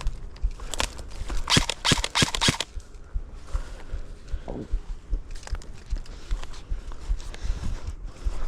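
Footsteps with rustling and scraping of brush or clothing against a body-worn camera, including a cluster of loud scrapes about one to two and a half seconds in.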